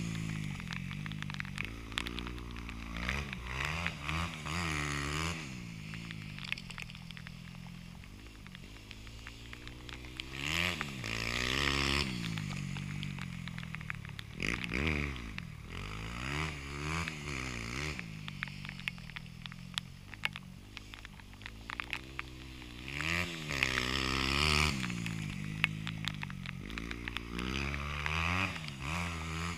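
Dirt bike engine revving hard and easing off again and again as the bike rides around a motocross track, its pitch climbing and falling with each burst of throttle and gear change, louder at times as the bike comes nearer.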